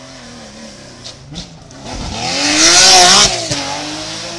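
Porsche 911 rally car's flat-six engine accelerating hard out of a hairpin and passing close by, building to a loud, rasping peak about halfway through, then falling in pitch as it moves away. Two short pops about a second in.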